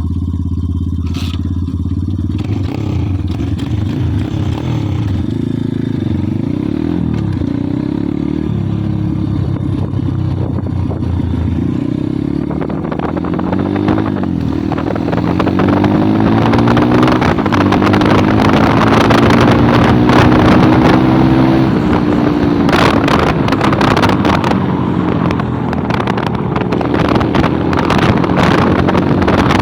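Kayo pit bike's single-cylinder four-stroke engine idling with a few small blips. About twelve seconds in it pulls away, its pitch rising and falling repeatedly as it is revved and ridden, with wind noise on the microphone.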